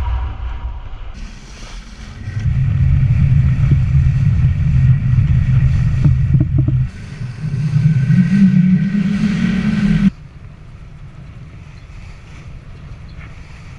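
Wind buffeting the camera microphone over water rushing along the hull of a sailboat under sail: a heavy low rumble that jumps in level a couple of times, then drops abruptly about ten seconds in to a softer, steady wind-and-water hiss.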